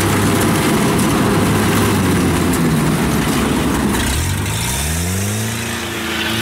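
Kubota DC-70 combine harvester's diesel engine running steadily while it cuts and threshes rice. About four seconds in, the engine note rises and holds at a higher pitch.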